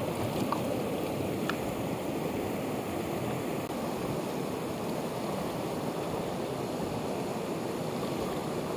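Mountain torrent rushing steadily over rocks, fed by a small waterfall pouring just upstream.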